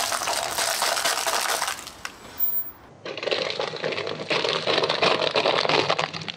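Car tyre rolling over a row of upturned aluminium foil cups, crushing them flat with a dense metallic crinkling and crackling. It comes in two stretches: about two seconds, a short lull, then about three seconds more.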